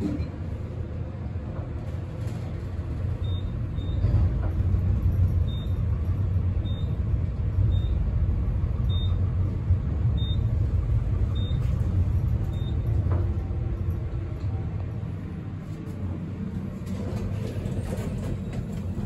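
Elevator car travelling down, a steady low rumble that grows louder a few seconds in and eases off near the end. A series of short high beeps sounds about once a second through the middle.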